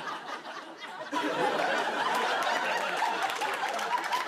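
Studio audience laughing, easing off briefly and then swelling again about a second in.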